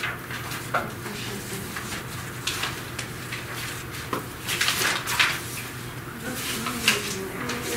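Students working at a lab bench: scattered small clicks, clinks and scratches of pencils, papers and sample containers being handled, with quiet talk near the end and a steady low hum underneath.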